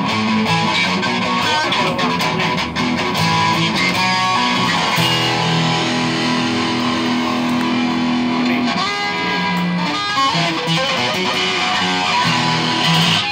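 Legend cutaway acoustic-electric guitar played fingerstyle through a cheap amplifier: a picked melody and chords over held bass notes.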